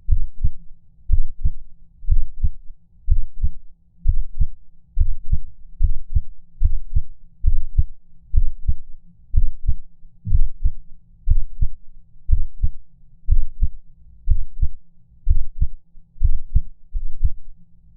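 Heartbeat sound effect: low, dull lub-dub thuds in close pairs, repeating about once a second.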